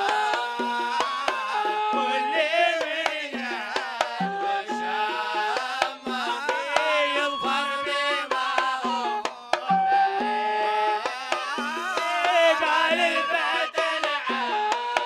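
Hadrami Zarbadi song: melodic singing over hand drums beating a steady repeating rhythm.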